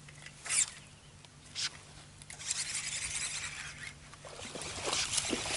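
Fishing reel being cranked, giving a fast whirring, rattling sound in two spells, with a sharp click about half a second in.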